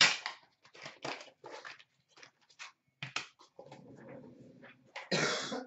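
Rustling and scraping of a small cardboard trading-card box being handled and opened: a quick run of short rustles, a steadier scraping about three and a half seconds in, and a louder rustle near the end.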